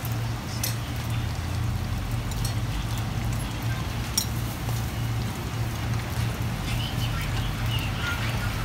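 Scissors snipping soft stinky tofu in a paper cup: a few sharp clicks, the loudest about four seconds in, over a steady low hum of street-stall background noise.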